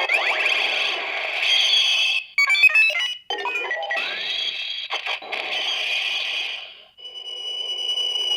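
CSM Decadriver toy transformation belt playing its electronic sound effects and music through its small built-in speaker after a Rider card is swiped. About two and a half seconds in comes a quick run of stepped beeps, and near the end a steady high tone.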